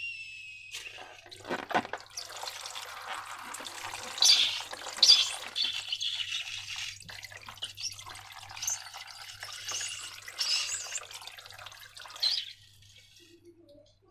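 Wet, sticky squelching and dripping of slime being squeezed and poured, with irregular sharp crackles and one low thump near the start. It stops shortly before the end.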